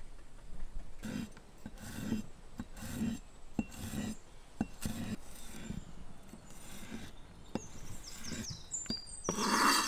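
A wide-bladed kitchen knife slicing garlic cloves on a wooden chopping board: slow, even strokes about once a second, each a short rasp through the clove ending in a tap on the wood. Birds chirp near the end.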